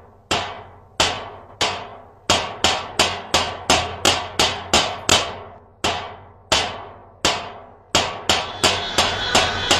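Metal pots and household metalware being banged by hand, a sharp clanging strike repeated about twenty times, each bang ringing out briefly. The pace is uneven: two to three strikes a second, with a slower stretch in the middle. This is pot-banging protest noise.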